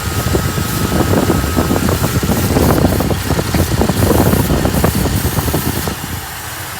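The 428 V8 of a 1966 Ford Galaxie 7 Litre is idling rough, with rapid uneven chuffing pulses. It has an active intake vacuum leak. The sound gets quieter about six seconds in.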